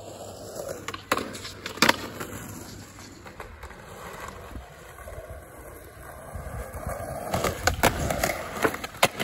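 Skateboard wheels rolling on street asphalt, with sharp clacks of the board popping and landing: two about a second in and several more near the end.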